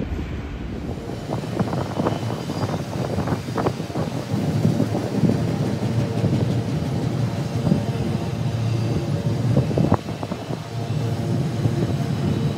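Union Pacific freight train rolling past: a steady heavy rumble with irregular metallic clanks and knocks from the cars, thickest a couple of seconds in and again near the end.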